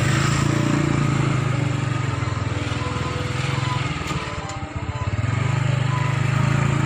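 Motor scooter engine running steadily while riding. It eases off briefly about four and a half seconds in, then picks up again.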